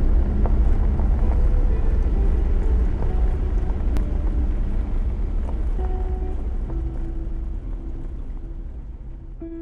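Toyota Land Cruiser 75-series Troopy driving on a gravel road: a deep, steady rumble that slowly fades as the vehicle pulls away.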